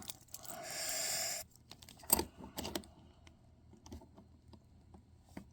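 A soft breathy hiss for about a second, then a few light clicks and small rattles of a tiny key being worked in the stubborn lock of a toy claw machine's coin box.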